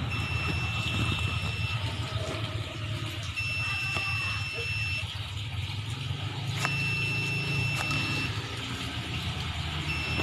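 A vehicle engine running steadily with a low rumble, with a high electronic warning beep about a second and a half long repeating every three seconds or so, four times.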